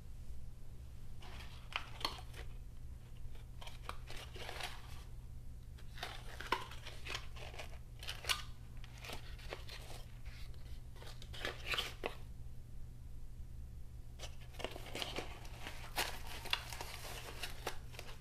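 Cardboard packaging insert and a thin plastic bag around a computer mouse rustling, crinkling and scraping as they are handled and pulled apart, in irregular bursts with light knocks. A steady low hum runs underneath.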